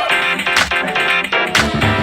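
Electro swing background music with a steady beat and plucked guitar-like notes.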